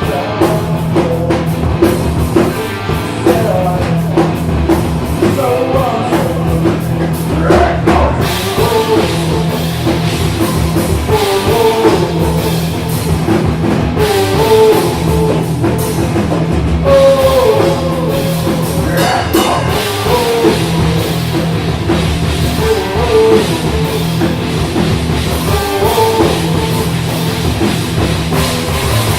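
Rock band playing loud and continuously, a drum kit driving it under a wavering lead melody.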